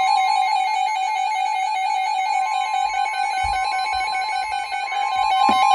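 NOAA Weather Radio warning alarm tone: a loud, steady single tone near 1 kHz sounding through the whole stretch, with a rapidly fluttering second tone just below it. The tone announces a new warning broadcast.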